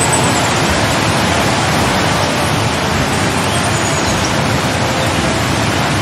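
Steady, loud rushing noise that spreads evenly across all pitches, without change.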